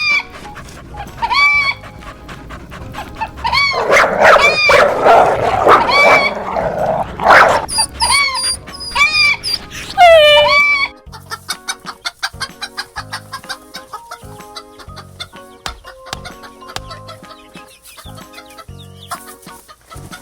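A string of short chicken clucks, each rising and falling, over music, with a loud noisy flurry in the middle. After about eleven seconds the clucks stop and only music with a steady beat goes on.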